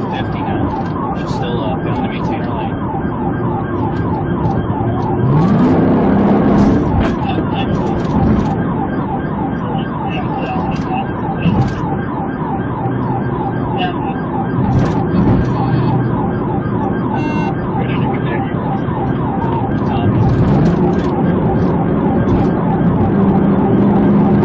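Police cruiser siren sounding continuously in a rapid, evenly repeating rise-and-fall yelp, as heard during a pursuit.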